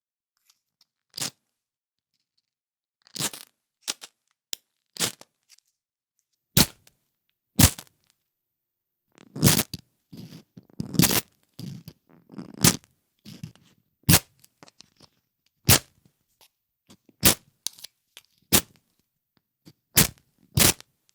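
A ferro rod struck again and again with a steel striker: short sharp scraping strikes, irregularly spaced about a second apart, with a run of longer, heavier scrapes in the middle.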